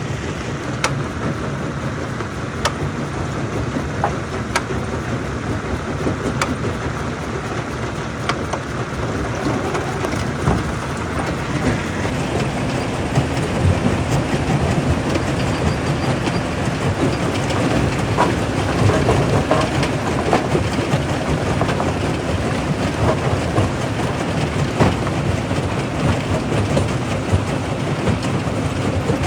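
Stone crusher running and crushing rock: a steady heavy rumble with clacking and crunching, with a sharp knock about every two seconds at first, then denser crunching from about halfway through.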